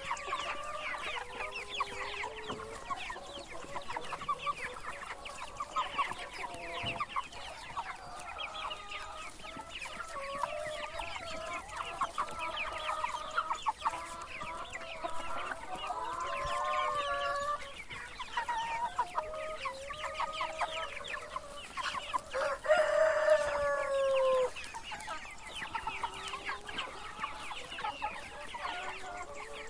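A flock of chickens clucking, many birds calling over one another without pause. About 22 seconds in, one louder drawn-out call stands out for about two seconds, falling in pitch at its end.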